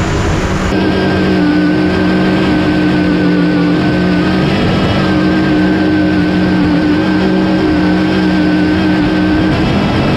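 Supercharged engine with an injector-hatted blower through the hood, held at high, steady revs under load during a burnout.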